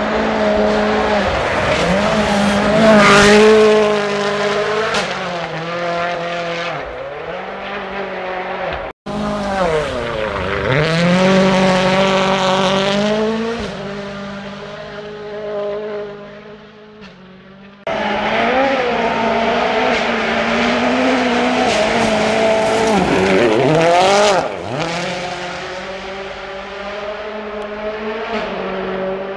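A Ford Fiesta RS WRC rally car's turbocharged four-cylinder engine at full throttle on gravel, revs rising and falling through gear changes as it passes. It is heard as three separate passes, with abrupt cuts between them about nine and eighteen seconds in, and the pitch drops as the car goes by.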